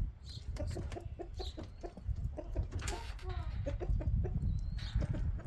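Chickens clucking in many short, repeated notes, over a steady low rumble.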